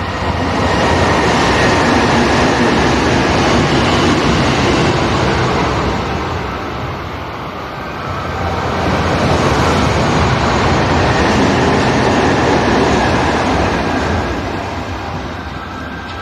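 Electric train passing through the station at speed, a loud rushing rail noise that dips about seven seconds in, swells again and then fades.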